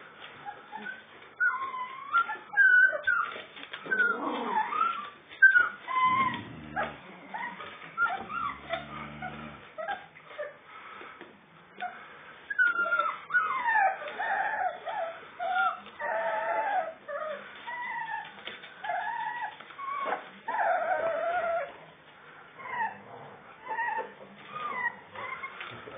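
Four-week-old Dalmatian–Labrador–Alsatian cross puppies whining and whimpering: many short, high calls that slide up and down in pitch, coming thick and fast in the middle.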